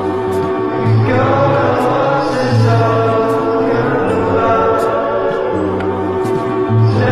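Background music: a choir singing slow, held chords over a low pulsing bass note.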